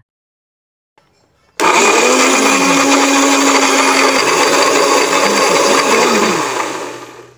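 Countertop electric blender grinding red chillies, shallots, garlic and turmeric with water into a wet paste. It starts suddenly about a second and a half in, runs steadily, then is switched off and winds down near the end.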